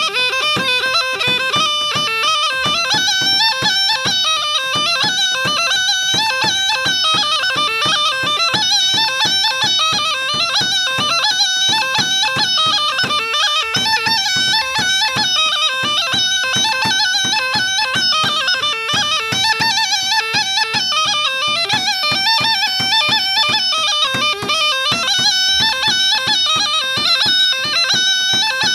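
Bulgarian gaida (bagpipe) playing a quick folk dance melody over a steady drone, with a regular low beat underneath.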